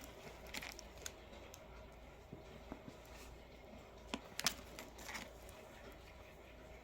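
Faint handling noise of rough green tree agate rocks: scattered light clicks and rustles, with a sharper pair of clicks about four seconds in.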